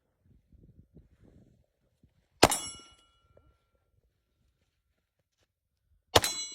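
Two pistol shots about four seconds apart, each followed by the ringing of a hit on a steel target.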